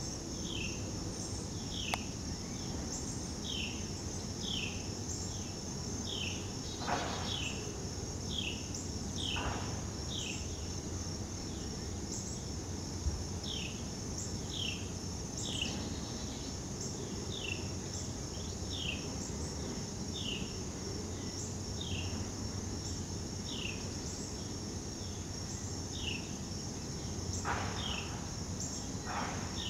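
A steady high-pitched insect drone, with a bird repeating a short falling chirp about once a second, with pauses, over a low background rumble.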